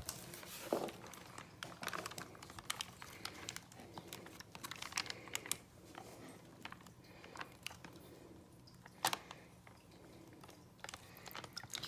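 Plastic shipping packaging being handled: light crinkling with many small irregular clicks and taps.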